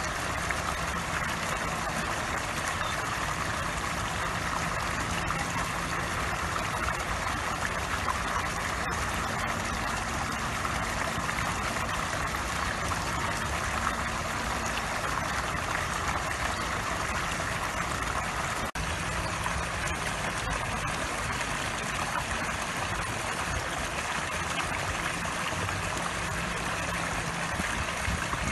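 Squirrel-statue fountain jetting water into a pond: a steady splashing rush of water, with a low steady hum underneath.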